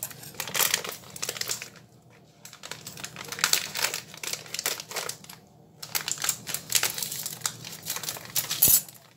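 A plastic sugar bag crinkling in irregular bursts as it is handled and emptied over the pot, with brief pauses.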